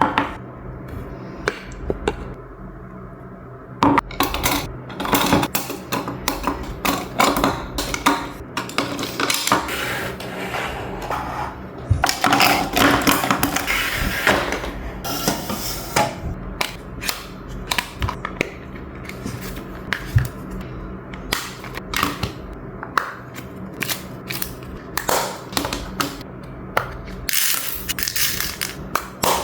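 Small desk items being picked up, set down and shuffled while tidying a desk: many light clicks, knocks and scrapes, with a longer stretch of rubbing about halfway through.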